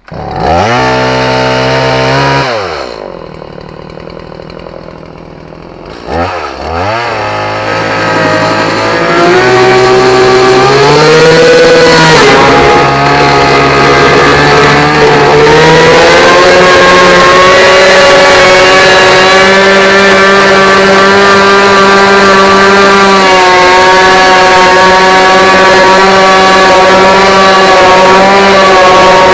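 A two-stroke chainsaw starts up, is revved briefly and drops back to idle. About six seconds in it is revved again, then held at full throttle for the last twenty seconds, running steadily with slight dips in pitch as it cuts through the boat's gunnel and fiberglass hull.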